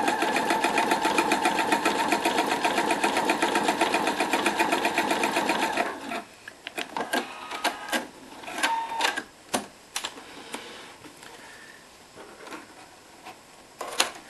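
Domestic sewing machine stitching at a steady speed with rapid, even needle strokes, sewing over the same seam to close the opening of an elastic casing. It stops about six seconds in, leaving scattered clicks and knocks as the fabric is handled, and a sharp snip of scissors cutting the thread near the end.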